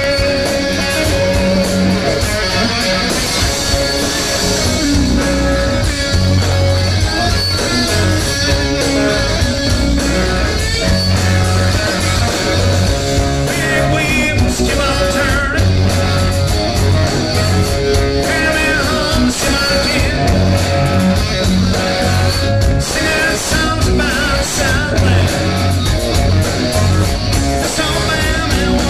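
Live rock band playing loud through a PA, with electric guitars and bass guitar, and a man singing into the microphone in the second half.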